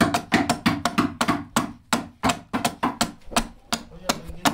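Hand adze (keser) chopping into mulberry wood, hollowing out a saz bowl: rapid, sharp blows, about five a second.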